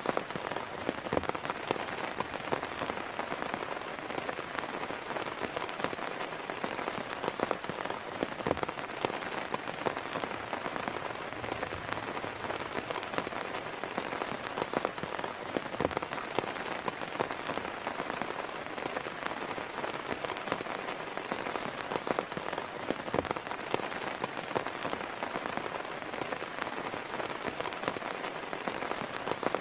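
Heavy rain falling steadily, a dense hiss with many separate drops striking close by.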